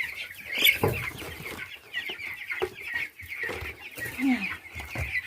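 A crowd of nearly three-week-old chicks peeping continuously in short high chirps, with a few dull thumps.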